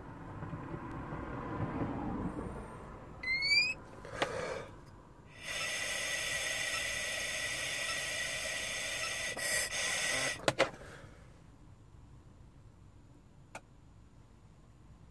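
Intoxalock ignition interlock breathalyzer taking a breath test: a short rising electronic chirp, then a steady high tone over the rush of breath blown through the mouthpiece for about five seconds, ending with a couple of sharp clicks. The test passes, reading zero alcohol.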